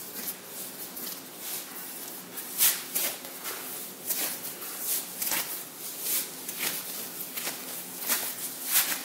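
Hands kneading a soft ball of risen yeast dough on a floured silicone mat: irregular soft squishing and patting strokes, about one or two a second.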